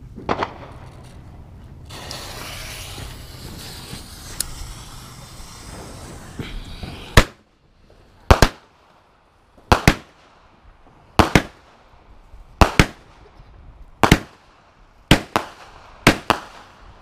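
Consumer fireworks going off: a hiss lasting several seconds, then a loud sharp bang, followed by a steady string of sharp reports about every second and a half, many in close pairs, as from a multi-shot aerial cake.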